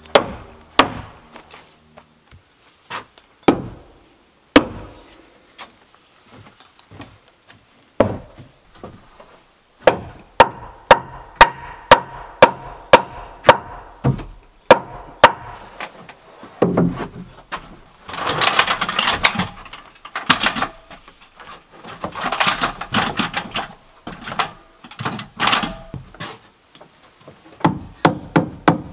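Hammer driving nails into the wooden framing of a log-cabin porch: scattered knocks at first, then a steady run of ringing blows about two a second. Three stretches of rougher scraping noise come in between, and another quick run of strikes comes near the end.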